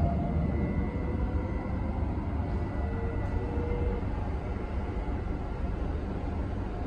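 Interior of a moving electric commuter train: a steady low rumble of the running gear with faint whining tones over it.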